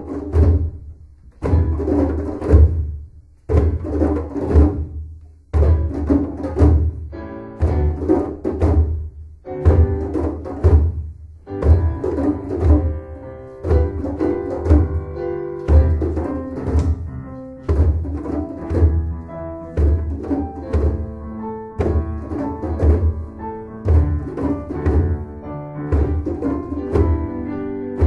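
Music with a steady beat and a strong low bass line.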